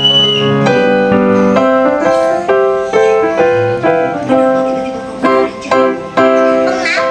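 Background music: a bright keyboard melody with quick notes in a steady rhythm.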